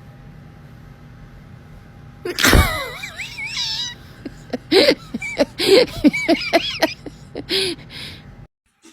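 A person screaming after being startled by a scare prank: a sudden loud outburst about two seconds in turns into a high, wavering scream, followed by a run of short, breathy cries. The sound cuts off abruptly near the end.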